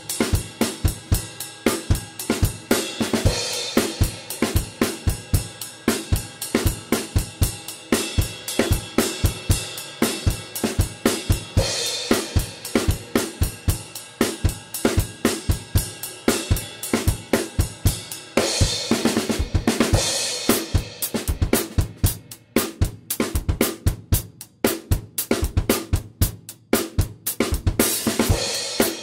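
Acoustic drum kit played on its own, with no backing track: a steady rock beat on bass drum, snare and hi-hat, with Meinl cymbal crashes every several seconds. A little past the middle the playing thins to sparse hits with short gaps for a few seconds, then builds back to a crash near the end.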